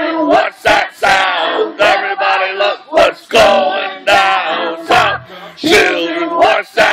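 A man singing loudly in short, chant-like phrases, with other voices joining in; no instruments stand out.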